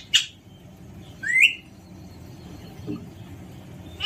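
Alexandrine parakeet calling: a short harsh screech right at the start, then a brief rising chirp about a second in.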